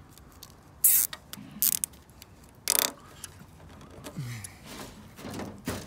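A plastic zip tie being pulled tight around a bamboo pole in a few short, sharp zips as its teeth ratchet through the locking head, the strongest about a second in and near the three-second mark.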